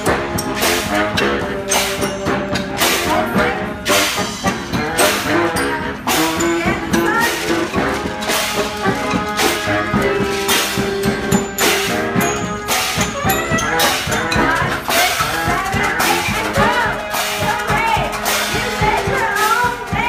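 A brass band playing live: saxophones and a sousaphone holding and moving between notes over a steady beat of drum and cymbal strikes.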